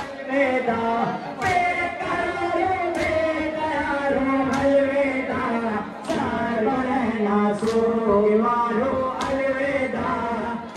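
Group of male voices singing a chant together in long held notes, marked by a sharp beat about every one and a half seconds.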